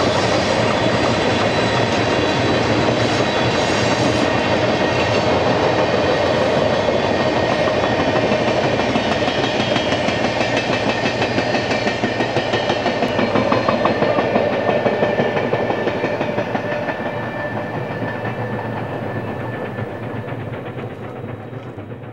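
Canadian Pacific 2816, a 4-6-4 Hudson steam locomotive, passing with its passenger train: steam exhaust and wheels clicking over the rail joints. The sound fades away over the last several seconds.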